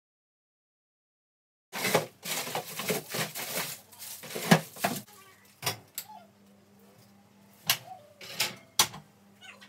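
Kitchen handling noises starting about two seconds in: rustling and clattering while rummaging through cupboards and freezer drawers for food, then a few sharp clicks and knocks as the oven door is opened and a tray is slid onto the oven rack. A faint low steady hum runs underneath in the second half.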